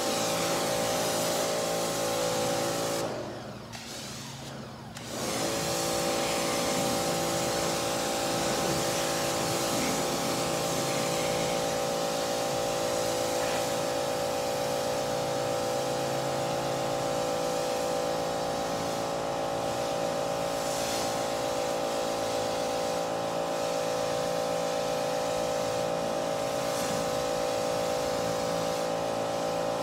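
Electric pressure washer running steadily with a whining motor-and-pump hum while its spray hits the car. It stops for about two seconds a few seconds in, then starts up again.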